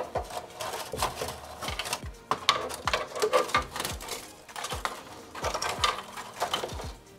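Wiring being pulled out of a 3D printer's electronics bay: plastic connectors, cable clips and wire bundles clicking and rattling in quick, irregular clicks.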